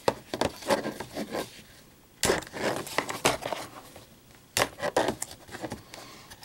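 Crinkly plastic packaging and a plastic DVD case being handled: irregular crackles, rustles and clicks in three short bursts.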